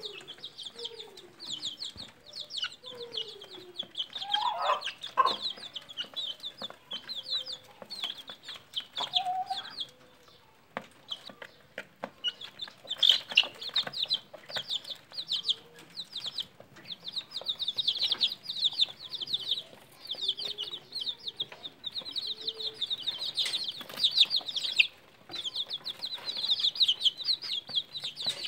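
A brood of young chicks peeping constantly in rapid, high calls. In the first several seconds this is mixed with a few lower, sliding clucks from an adult chicken.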